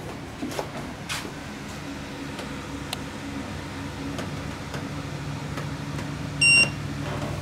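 A steady low machine hum that slowly grows louder, with a few light clicks. About six and a half seconds in comes a single short, high electronic beep.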